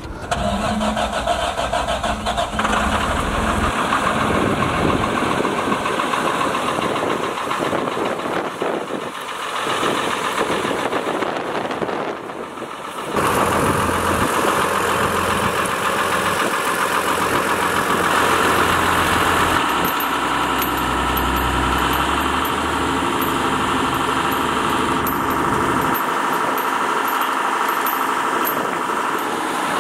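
2003 Johnston street sweeper running with its sweeping gear engaged, a steady loud engine-and-machinery drone while the gutter broom turns against the ground. It gets louder suddenly about thirteen seconds in.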